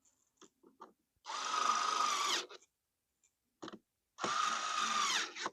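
Small lithium cordless screwdriver driving screws to tighten them, in two runs of about a second each. Its motor whine drops in pitch as each run stops, with a few light clicks between the runs.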